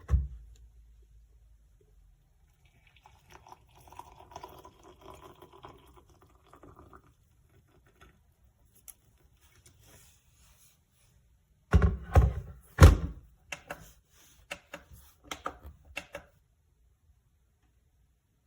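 Handling of a stainless steel electric kettle: a thunk, a faint stretch of water pouring, then several loud clunks and knocks about twelve seconds in, followed by lighter clicks.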